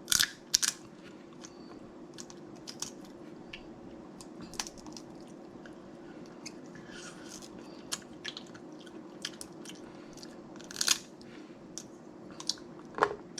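Close-miked eating of snow crab legs: chewing, with a dozen or so sharp cracks and clicks scattered through, the loudest about a second in, near 11 seconds and just before the end.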